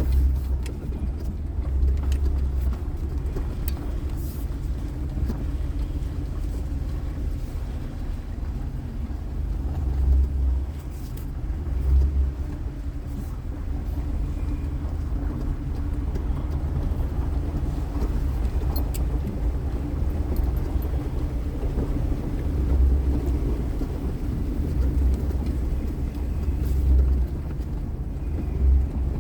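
Low, steady rumble of a moving car, with several brief swells.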